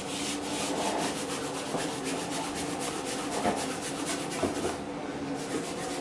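Steel palette knife scraping and smearing oil paint in quick repeated strokes, working the paint across the palette and the canvas.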